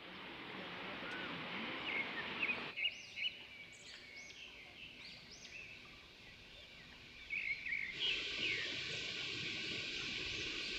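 Steady rush of waterfall water with small birds chirping repeatedly over it. The background changes abruptly about three seconds in and again about eight seconds in.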